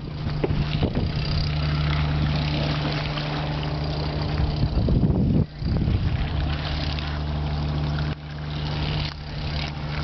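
A ship's engine humming steadily under way, under a broad rush of wind and water noise.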